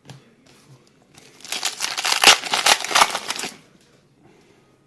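Foil wrapper of a trading-card pack crinkling as it is torn open by hand: a dense rustle of about two seconds, starting about a second in.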